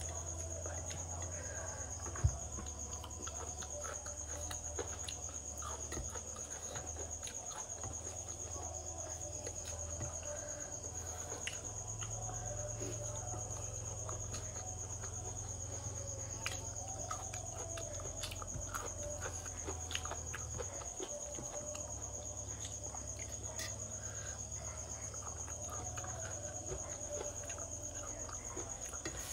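A steady, high-pitched insect trill runs unbroken throughout, with a low hum underneath. Scattered small clicks come from fingers working food on a steel plate.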